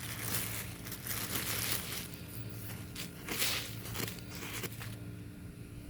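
Plastic garbage bag crinkling and soil rustling as potting soil is pulled out of the bag by hand, in irregular swishes that die down near the end. A steady low hum runs underneath.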